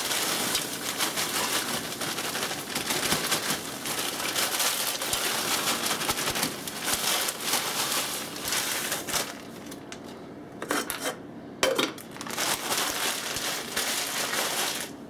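Plastic bag of mixed vegetables crinkling and rustling as the vegetables are poured into a saucepan of water. It goes quieter after about nine seconds, leaving a few sharp clinks of the pot and its lid.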